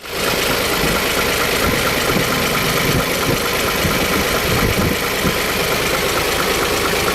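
Isuzu 6HK1 inline six-cylinder diesel engine running at a steady idle.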